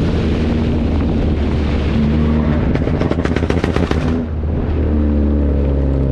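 Honda Civic Type R FK8's turbocharged 2.0-litre four-cylinder running loud under hard acceleration through a catless, straight-piped exhaust. About three seconds in, a rapid string of exhaust pops and crackles sounds. The engine briefly drops just past four seconds, as on a shift or lift, then pulls steadily again.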